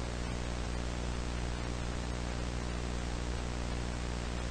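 Steady mains hum with hiss, like the sound of an analogue video line whose input signal has been lost.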